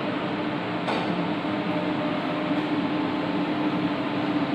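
Steady machine hum over an even hiss, with one short click about a second in.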